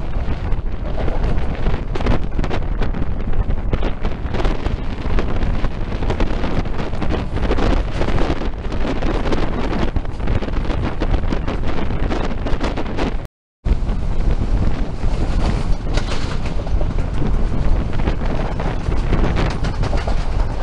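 Wind buffeting a microphone held out of a moving passenger train's window, over the train's running noise: a steady, rough, gusty rush of noise. It cuts out completely for a split second about two-thirds of the way through.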